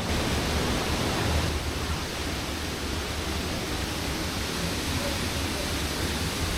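Steady rushing of a large waterfall, Huangguoshu Waterfall's falling water, an even unbroken noise.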